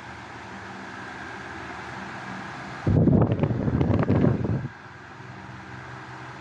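National F-406NM 16-inch electric table fan running with a steady motor hum. About three seconds in, its airflow buffets the microphone as a loud rushing rumble for nearly two seconds, then the plain hum returns.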